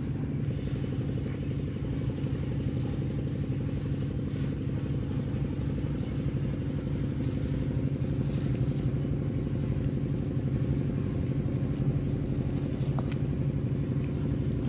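An engine running steadily at an even pitch, unchanging throughout, with a few faint light clicks on top.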